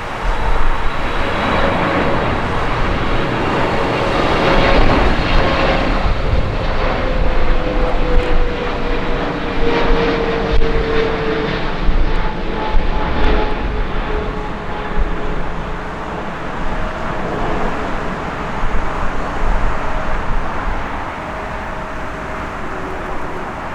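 Jet engines of an arriving Emirates Boeing 777-300: a loud, continuous rushing jet noise with a whine that slowly falls in pitch, easing off somewhat in the second half.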